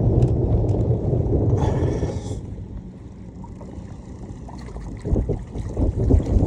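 Wind buffeting the microphone as a low rumble, easing off about two seconds in and gusting back up near the end, with a short hiss as it drops.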